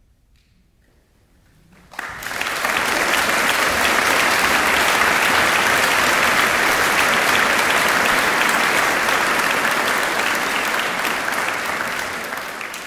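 Audience applauding. After a short hush the clapping breaks out suddenly about two seconds in, holds steady, and starts to die away near the end.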